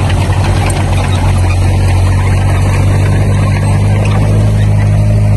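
Heavy-equipment diesel engine running steadily at an even speed.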